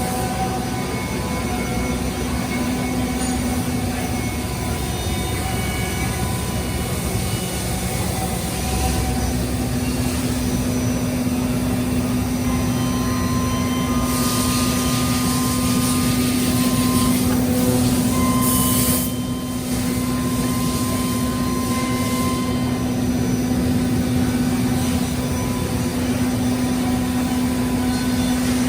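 Matsuura VX1000 CNC vertical mill running under power: a steady machine hum with several whining tones over it. A low tone grows stronger about nine seconds in, and a hissing burst runs from about fourteen to nineteen seconds in.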